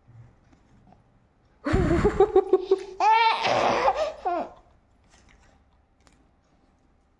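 Young child laughing: two high-pitched bursts of quick, pulsing laughter starting about two seconds in and dying away a little after halfway.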